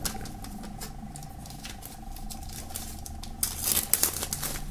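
Clear plastic shrink-wrap film being cut and peeled off a CD case: light scratching and ticking at first, then loud crinkling and crackling of the thin film near the end as it is pulled away.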